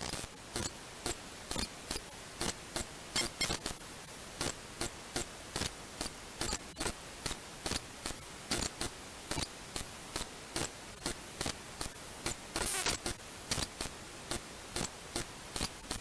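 Steady hiss with a constant very high thin whine, and many small sharp clicks and ticks at irregular intervals, about two or three a second.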